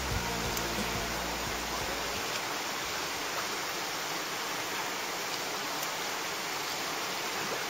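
Chattooga River whitewater rapids rushing: a steady hiss of moving water.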